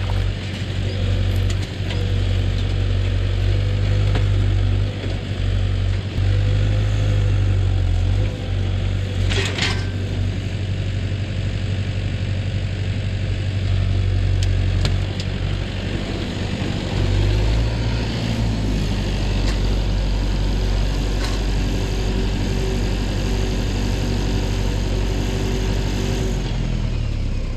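Tractor engine running steadily under load, its pitch shifting about two-thirds of the way through, with a sharp clank about a third of the way in.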